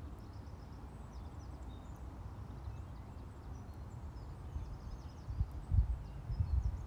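Outdoor wind rumbling on the microphone, with a few stronger low gusts about five to six seconds in. Small birds chirp faintly over it.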